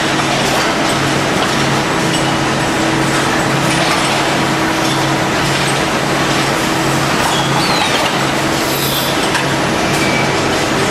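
Steady, loud machinery din on a cathode ray tube production line: a constant hiss with a low hum and a steady higher tone underneath.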